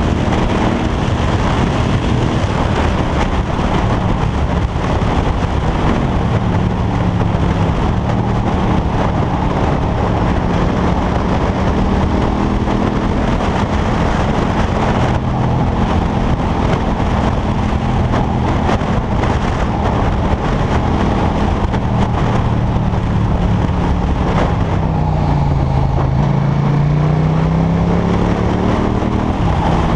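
KTM 1290 Super Duke R's V-twin engine running under way at a fairly steady engine speed, with wind rushing over the microphone. About 25 seconds in, the revs drop briefly and then climb again.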